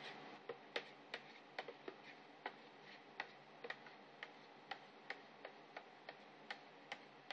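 Faint sharp ticks, roughly two a second and slightly uneven, over a low steady hum.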